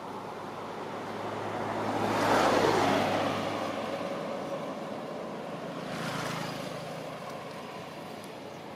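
A motor vehicle passing by: a rising and falling whoosh with a dropping pitch, loudest about two and a half seconds in. A second, fainter vehicle passes about six seconds in.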